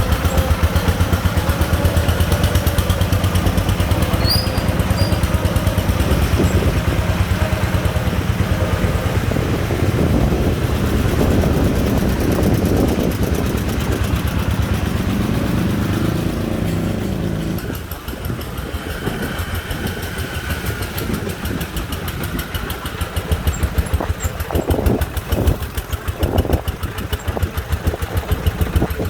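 Single-cylinder diesel engine of a công nông three-wheeled farm truck chugging under a load of sand, a rapid steady thumping. About two-thirds of the way through it gets quieter, and near the end it comes in uneven, stronger pulses.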